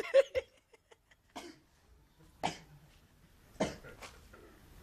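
A person coughing and sneezing in about four short, sharp bursts a second or so apart, the first and loudest ones right at the start. The fits are set off by sniffing Unani herbal powder up the nose.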